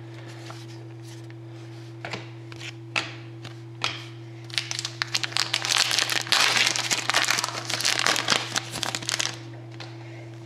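Foil wrapper of a hockey card pack being torn open and crinkled by hand: a few light clicks of card handling, then about five seconds of dense crinkling starting around four and a half seconds in. A steady low hum runs underneath.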